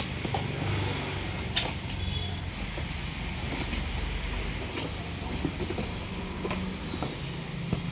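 Cardboard packaging being opened and handled, with scattered clicks and rustles (the sharpest about one and a half seconds in), over a steady low rumble.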